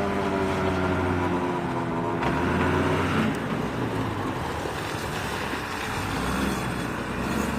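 Diesel engine of a Doosan 4.5-ton forklift running, its note easing slightly lower over the first few seconds and then turning rougher and less even.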